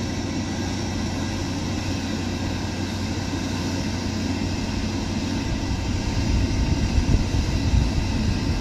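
Large crawler crane's diesel engine running steadily with a constant low hum, as the crane holds its suspended weight. A deeper rumble swells about six to eight seconds in.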